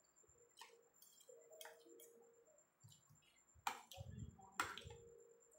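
Metal spoon and fork clicking and scraping against a ceramic plate of rice, a scattering of light clicks with two sharper ones near the end, along with soft chewing sounds.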